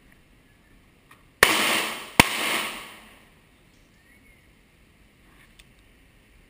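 Two 9mm shots from a Glock pistol, a little under a second apart, each followed by a long echo that dies away.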